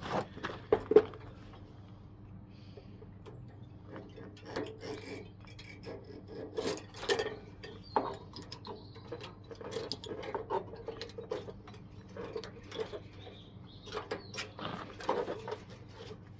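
Irregular clinks, knocks and scraping of metal parts being handled during hand dismantling, with a sharp knock about a second in, over a faint steady hum.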